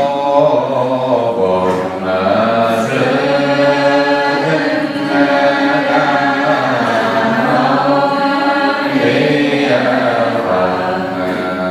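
A man's voice chanting a slow Buddhist chant into a microphone, with long held notes that glide slowly from one pitch to the next.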